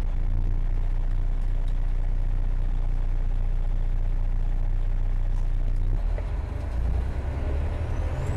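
Freightliner M916A3 semi tractor's diesel engine running, heard from inside the cab as a steady low drone. Near the end the engine note changes and a high whine rises as the truck pulls away from a stop.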